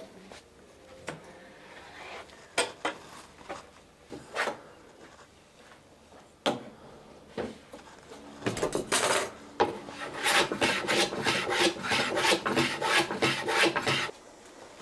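A hand tool shaving the end grain of two clamped wooden boards in rapid, even scraping strokes, about three a second, starting a little past halfway. Before that, a few scattered knocks of tools and wood.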